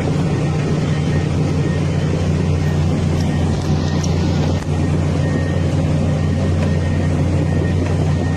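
A large engine running steadily at constant speed, a low, even drone.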